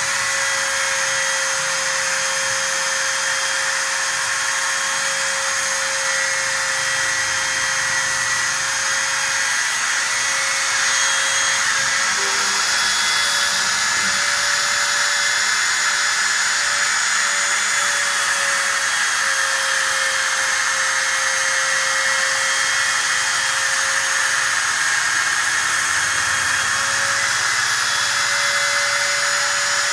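Automatic aluminium letter-cutting machine running and cutting, its spindle giving a steady high whine over a dense hiss, the pitch wavering slightly as it works.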